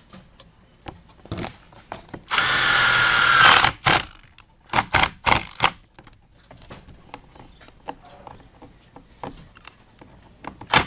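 Power drill driving a self-drilling screw into the running board's end cap: one steady whine lasting just over a second, starting about two seconds in. A few sharp knocks and clicks follow.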